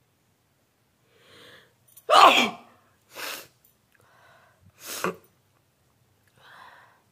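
A woman sneezing once, loudly, about two seconds in: a sneeze brought on deliberately. Several shorter, fainter breathy sounds follow.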